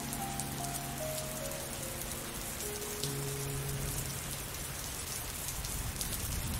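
Steady rain falling, with a soft background melody: a slow run of falling notes over held low notes in the first half, fading out after about four seconds.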